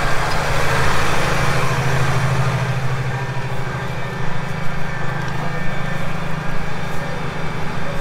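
Massey Ferguson 7716 tractor's diesel engine running steadily under load as it pulls a mole plough through the ground. It swells about two seconds in, then eases slightly.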